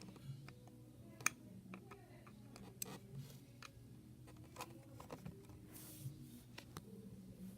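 Faint, scattered sharp clicks and light taps, the loudest about a second in, over a low steady hum.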